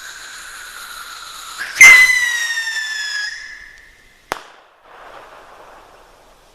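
Texas Pop bottle rocket taking off with a sudden whoosh and a whistle that slides slowly down in pitch, followed about two and a half seconds later by one sharp bang from its report and a faint echo rolling back.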